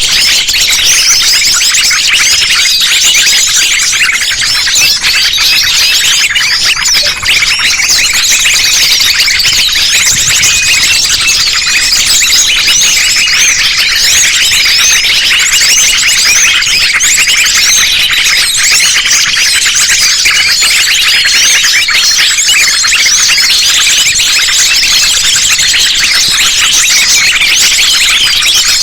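A dense, continuous chorus of small songbirds chirping and twittering at once, many high, quick notes overlapping: a layered bird-lure recording of small birds such as sunbirds.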